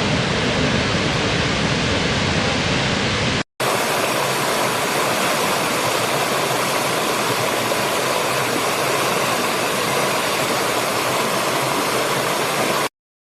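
Steady rush of falling water from a waterfall, broken by a split-second dropout about three and a half seconds in, then stopping abruptly near the end.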